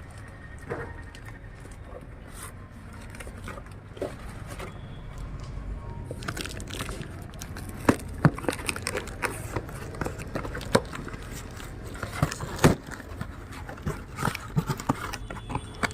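Crinkling and sharp clicks of a shampoo package being handled and opened, getting busier from about six seconds in.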